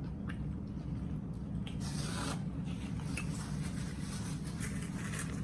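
Wet chewing and mouth sounds of a person eating a large grinder sandwich, with scattered soft clicks and a brief hiss about two seconds in, over a steady low background hum.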